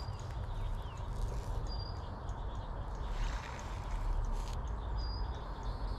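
Outdoor pond-side ambience: a steady low wind rumble on the microphone, with a few short high bird chirps spread through it.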